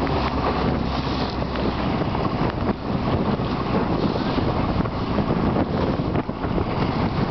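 Wind buffeting the microphone in gusts, over the running motor of a small motorboat and choppy lake water splashing.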